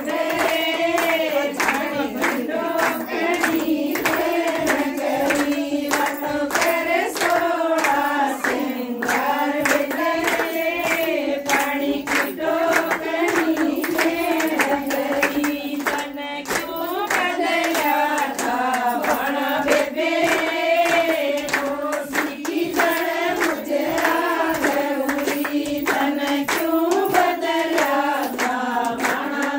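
Women singing a Haryanvi folk song together, with steady rhythmic hand-clapping keeping the beat.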